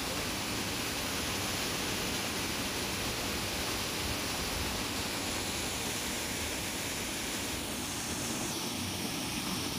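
Steady rushing of flowing water from the stream running through the wooded dene, an even hiss that thins out a little near the end.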